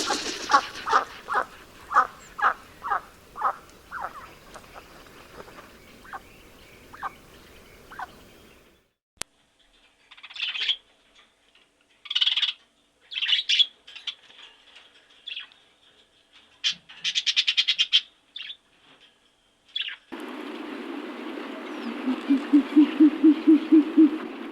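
Birds calling: a run of about a dozen short calls that slow down and fade, then separate high chirps and a brief rapid trill. Near the end, a frog croaking in a fast run of low pulses over a steady hiss.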